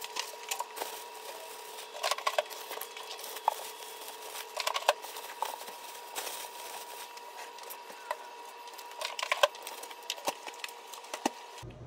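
Groceries being unpacked by hand: plastic bags rustling in short bursts and cartons and a plate clicking and knocking against each other and the fridge shelves, irregularly, over a faint steady hum.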